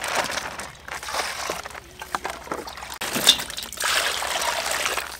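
Water poured from a plastic scoop into a metal basin of fish balls and tofu cubes, splashing and sloshing. The pouring is loudest from about three seconds in.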